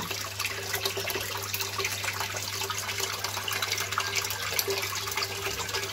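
Water bubbling and splashing in an aerated koi quarantine tank, as air bubbles rise and break at the surface in a dense, steady patter of small ticks. A steady low hum runs underneath.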